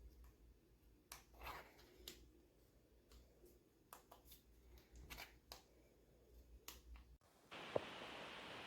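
Near silence with faint scattered clicks. A little past seven seconds the sound cuts abruptly to a steady hiss, with a sharp click near the end.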